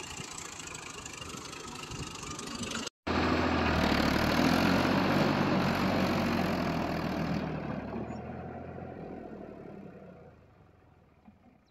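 Farm tractor's diesel engine running under load as it pulls through mud. There is a brief cut about three seconds in; after it the engine is louder, then fades away over the last few seconds as the tractor drives off.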